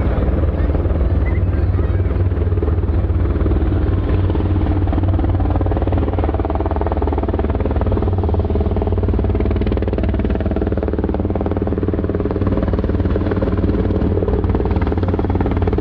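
Several military helicopters flying low overhead in formation: a steady, loud mix of rapid rotor-blade chop and engine noise.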